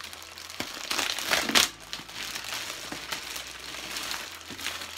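A clear plastic bag crinkling and rustling as a boxed doll is worked out of it, loudest around a second and a half in.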